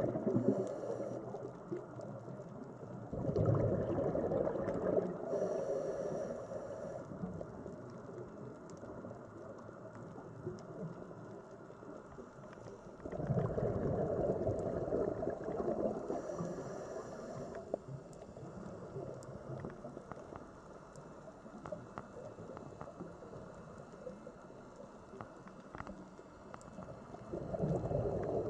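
Sea water surging and ebbing in slow swells, each rising over a second or so and fading away over several, about every ten seconds.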